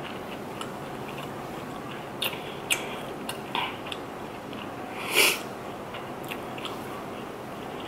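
Close-miked mouth sounds of a person chewing food with closed lips: a few soft clicks and smacks and one louder brief noise about five seconds in, over a steady hiss.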